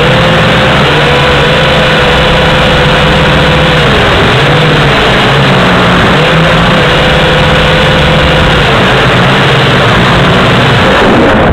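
Small camera drone's motors and propellers whining loudly, heard through its own onboard camera, the pitch sagging and coming back up a few times as the throttle is worked.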